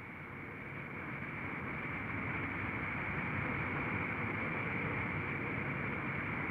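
Aerotrain air-cushion test vehicle running along its track, with its two gas-turbine engines driving a single shrouded propeller: a steady rushing drone with a high whine in it, growing louder over the first couple of seconds and then holding steady.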